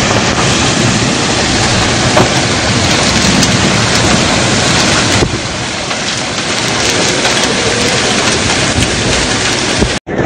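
Torrential rain and storm wind: a loud, dense, steady rush of noise that eases slightly about five seconds in.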